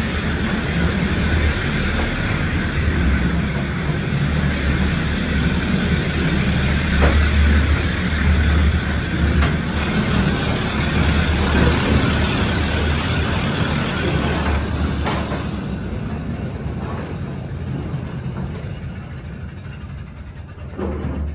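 Air-powered mine train running along the rails through a rock tunnel: a steady rumble and hiss that fades over the last several seconds as the train slows to a stop.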